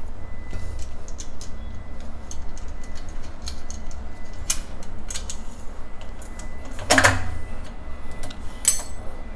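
Scattered small clicks and taps of hardware being handled as a drawer slide channel is packed and screwed into a kitchen cabinet, with sharper knocks about four and a half seconds in, about seven seconds in, and near the end. A steady low rumble runs underneath.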